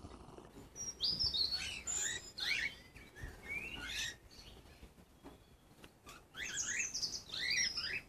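A group of cockatiels chirping and whistling: flurries of quick, mostly rising calls in two bouts, the second near the end.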